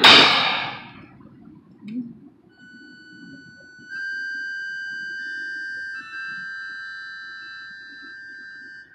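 Live music: a loud crash at the start rings away within about a second. Then a single high note is held steady for about six seconds, growing louder about four seconds in, over a faint low background murmur.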